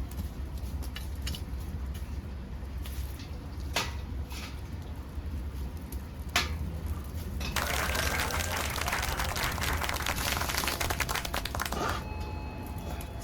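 Dead podocarpus wood burning in a homemade pail-can wood-gas stove: a few sharp single pops, then several seconds of dense crackling and hissing from about halfway in, over a steady low rumble.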